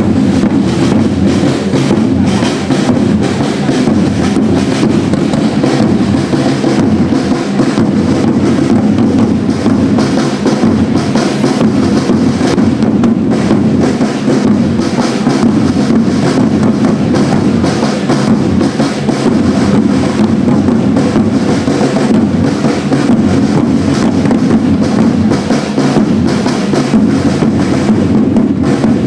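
A group of marching side drums playing a continuous, rapid cadence of densely packed strokes.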